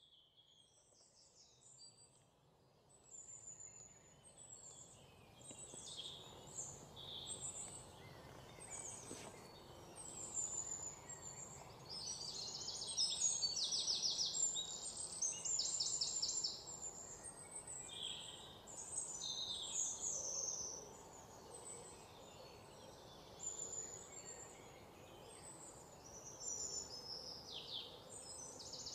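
Several birds chirping and trilling, with quick repeated trills among short chirps, over a steady low hiss. It fades in from near silence over the first few seconds.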